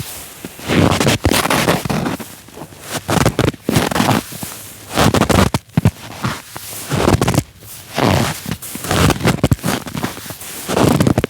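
Footsteps crunching and creaking in snow, a slow, even walk of about one step a second.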